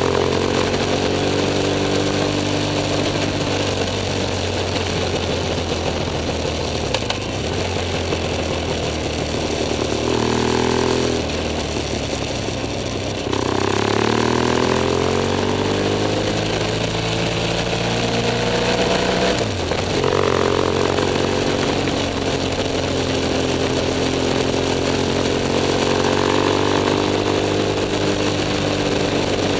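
BMW F 800 S parallel-twin engine running under way, its note holding steady, dropping off around the middle and then climbing again as the revs rise, with wind noise from riding.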